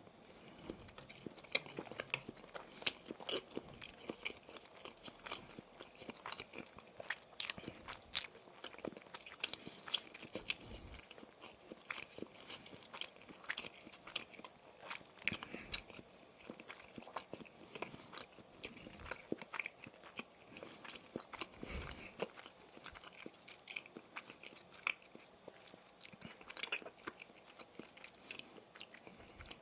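Close-miked chewing and biting of Maxbong sausage sticks: irregular wet smacks and crisp clicks of the mouth working on the sausage.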